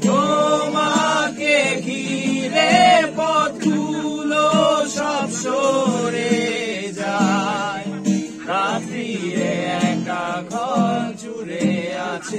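A man singing a song with vibrato to an acoustic guitar accompaniment.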